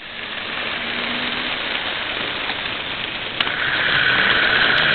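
Model train running along the track, heard from a camera riding on the train: a steady rushing noise of wheels on rail and motor that grows louder in the first second. A sharp click comes about three and a half seconds in, after which the noise runs louder and higher.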